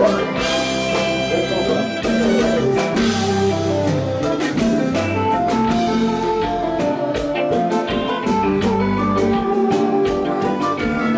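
Live kompa band playing: electric guitar lines over drum kit and congas, with a steady dance beat.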